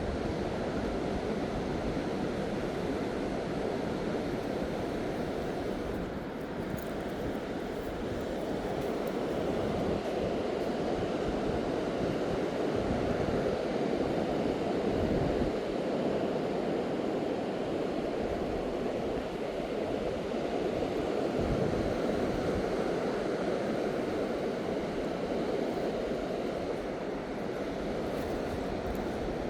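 Steady rush of surf and wind, swelling and easing slowly, with wind buffeting the microphone.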